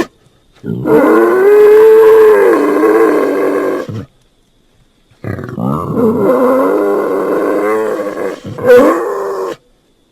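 A man's voice making drawn-out, growling pig-noise imitations: two long calls of about three and four seconds, each with its pitch swooping up and down, separated by a silent gap.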